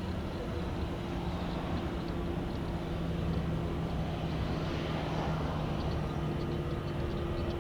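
Jet airliner engine noise: a steady rumble with a low, even hum running through it.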